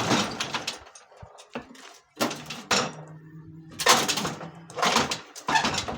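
Metal clanking and scraping as heavy parts of a large electric motor are pried and shifted, in several loud, irregular bursts over a faint, low, steady hum.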